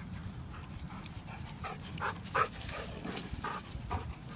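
Black Labrador retriever panting close by, in short quick breaths about three a second.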